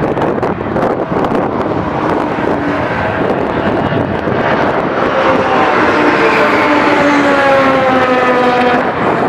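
Race car engines running on the circuit. From about five seconds in, one engine note slides steadily down in pitch for several seconds.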